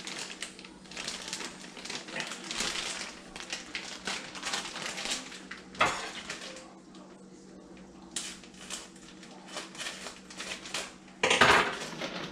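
A plastic bag of shredded Colby Jack cheese crinkling and rustling as it is handled and pulled open. There is a sharp snap about six seconds in and a loud rustle near the end.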